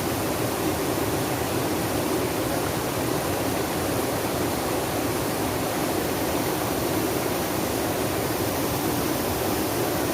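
Flowing water running steadily, an even, unbroken hiss without distinct splashes or changes.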